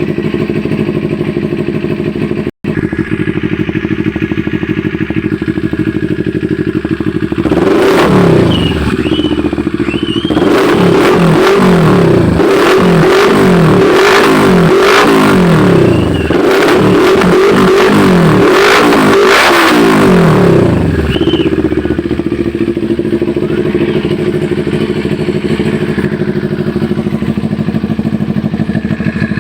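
Motorcycle fitted with an aftermarket SC-style exhaust pipe and mid pipe, idling steadily. About a third of the way in it is revved in a quick series of throttle blips, each rising and falling, for roughly thirteen seconds, then it settles back to idle.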